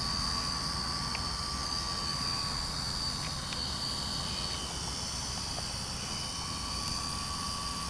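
Strong wind buffeting the microphone in a low rumble, with a steady high-pitched whine held over it.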